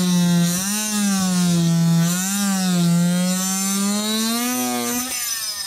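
Oscillating multi-tool with a scraper blade running as it cuts old caulking from under a plastic portlight's trim ring. Its buzz dips and rises in pitch as the blade loads up in the sealant, then goes quieter near the end.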